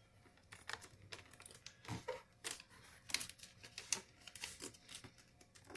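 A sheet of origami paper being folded and creased by hand: faint, irregular crinkles and small clicks of paper and fingertips.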